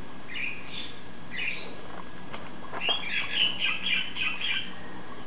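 Short high-pitched chirps: two brief groups, a couple of soft clicks, then from about three seconds in a quick run of about eight chirps, some falling in pitch.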